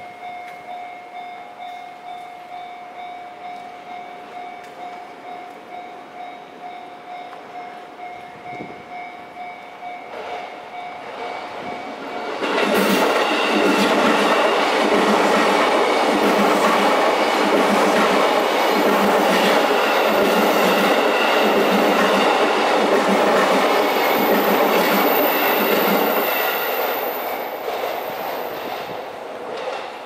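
Japanese level-crossing warning bell ringing repeatedly. About twelve seconds in, an electric commuter train runs through the crossing, much louder, its wheels clacking over the rail joints in a steady beat about once a second, before it fades away.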